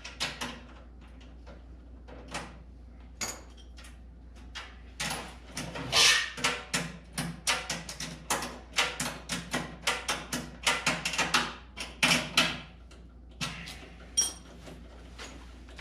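Wrench and bolts being worked on a metal tool cart: a series of metallic clicks, knocks and clanks as nuts and bolts are tightened. The strokes come quickest and loudest from about five to thirteen seconds in, with a brief metallic ring near the end.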